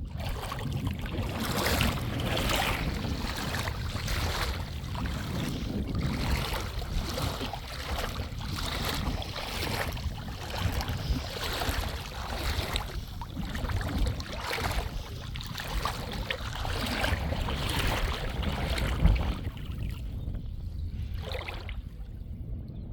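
Wind buffeting the microphone with a steady low rumble, over footsteps crunching on a stony beach at a walking pace, roughly one step a second.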